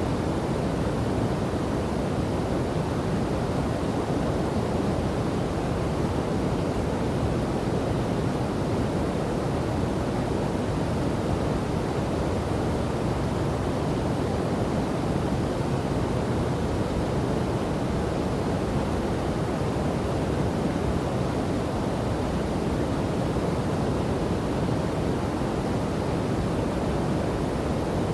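Rushing water of a river and waterfall, a steady deep noise with no let-up or change.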